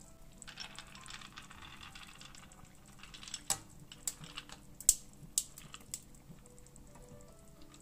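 Ice cubes clinking against a white bowl and dropping into a pan of simmering walnut stew, a series of sharp clicks with the loudest about five seconds in, after a couple of seconds of soft hiss. The ice is added to make the ground walnuts release their oil.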